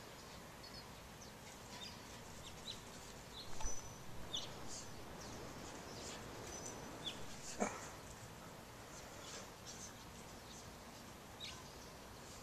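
Small birds chirping now and then in short high notes, with a few soft knocks about three and a half seconds in and one short sharp sound a little past halfway.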